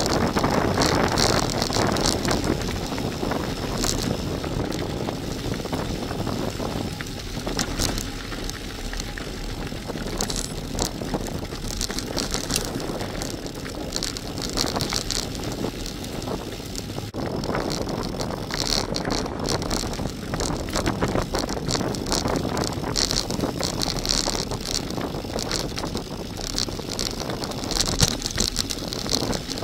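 Bicycle tyres rolling fast over a loose gravel track, with continuous crunching and many small rattles and clicks from stones and the bike, and wind buffeting the bike-mounted camera's microphone.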